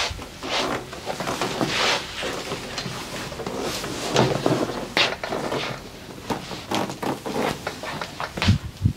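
Massage sounds: hands rubbing, kneading and tapping on a person's body in an irregular run of swishes and sharp pats, with a few heavier thumps near the end.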